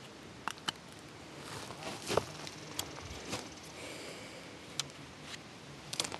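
Handling noise from a spotting scope on a tripod being touched and moved: scattered light clicks and rustles, a few of them sharper than the rest.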